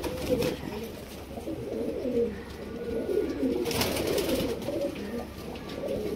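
Domestic pigeons cooing continuously, several voices overlapping. About four seconds in there is a brief rustle of feathers as a pigeon's wing is spread out by hand.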